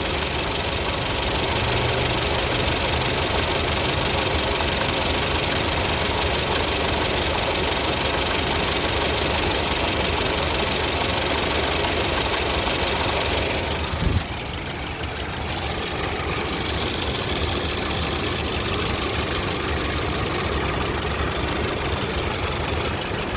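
2012 Honda Civic EX's 1.8-litre four-cylinder engine running steadily at idle with the air conditioning on, the condition in which the owner reports an extra noise, here not as loud. About fourteen seconds in there is a brief low thump, and the sound then turns quieter and duller.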